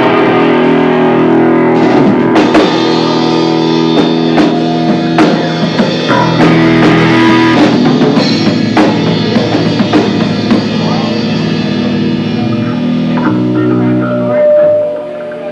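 Live rock band playing loud electric guitars over a drum kit, with long sustained chords and steady drum hits, picked up by a VHS-C camcorder's built-in microphone.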